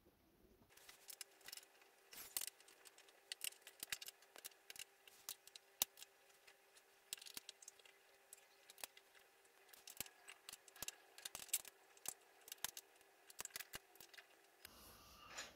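Faint, irregular clicks and light metallic ticks of screws and a small hand tool fastening an office-chair armrest to the seat.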